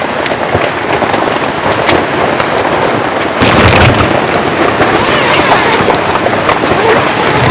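Heavy rain pelting taut tent or tarp fabric in a dense crackle of drops. It grows heavier about three and a half seconds in.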